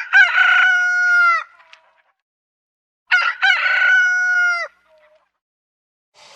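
A rooster crowing twice, two full cock-a-doodle-doo calls about three seconds apart, each ending in a falling drawn-out note.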